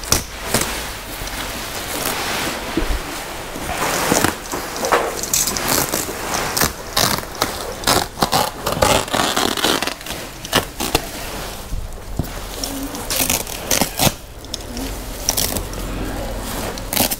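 A woven plastic sack being torn open and pulled off a cardboard-boxed bale: rustling and scraping, with many short sharp rips as the stitching strings give way.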